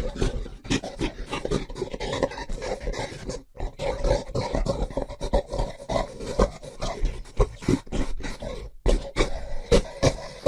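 Gorilla vocalizing in a fast, rough run of grunts and pants, broken twice by short silences.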